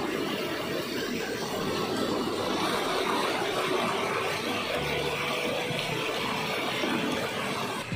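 Water of a small cascade on a rocky hill river rushing over boulders, steady and unbroken.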